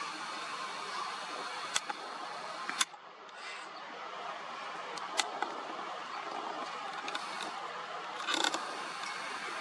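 Handling noise from a hand-held camera: a few sharp clicks, two of them close together about five seconds in, and a short rustle near the end, over a steady hiss.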